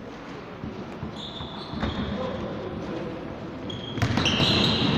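A basketball bouncing on a hardwood gym floor, with sneakers squeaking. It gets louder about four seconds in as play picks up, with quicker bounces and squeaks.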